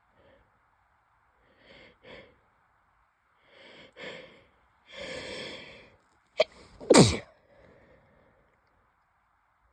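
A person sneezing. Three gasping in-breaths build up over several seconds, a short catch follows, and then one loud sneeze comes about seven seconds in.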